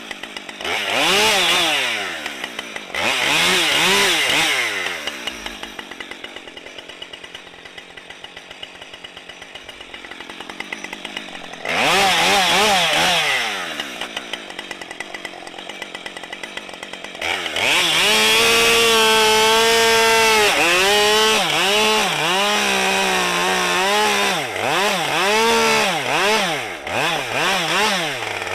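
Husqvarna 550 XP two-stroke chainsaw being revved in short blips, idling in between, then held at full throttle for several seconds, its pitch dipping and recovering as it cuts into a fallen tree, followed by a run of quick revs up and down.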